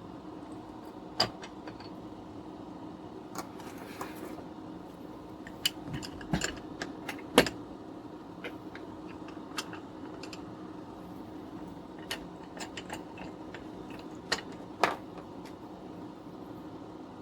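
Scattered light clicks and small metallic clinks of hand tools and wire being handled, with sharper snaps about a second in, halfway through and near the end, over a steady low hum.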